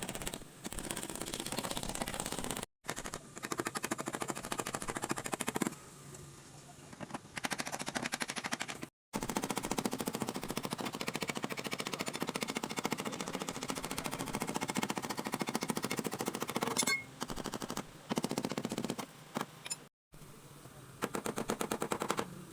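Fast, rapid-fire metal impacts on a car's sheet-metal body panel during dent repair, in several bursts that stop and start abruptly.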